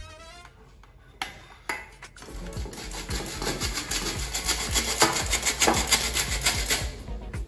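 Flour sifter in use: quick, repeated rasping strokes as flour is worked through the mesh, growing louder from about two seconds in.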